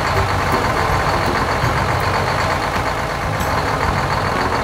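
Truck engine sound effect: a diesel dump truck's engine running steadily as it drives off, with a low rumble throughout.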